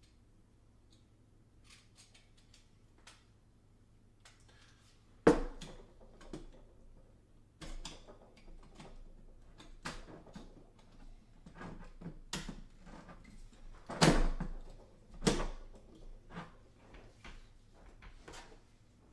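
Metal frame pieces of a mining-rig kit being handled and fitted together: scattered clicks and knocks, with loud knocks about five seconds in and twice more near the fourteen- and fifteen-second marks.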